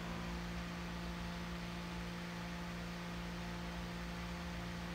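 Steady electrical mains hum over a faint hiss, with no other events.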